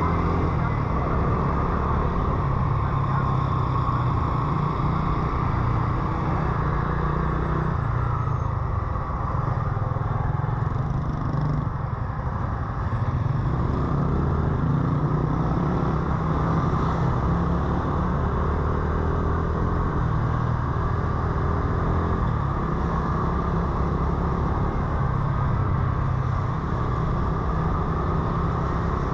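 Motorcycle engine running steadily while riding in city traffic; its note drops about ten seconds in, as the bike eases off, and climbs again a few seconds later.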